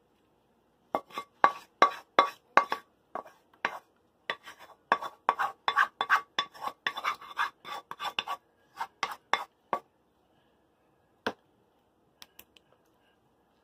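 A spoon clinking, knocking and scraping against a sauce bowl and an aluminium foil baking pan as meat sauce is scraped out and spread. There is a rapid run of clinks for about nine seconds, then only a few scattered taps near the end.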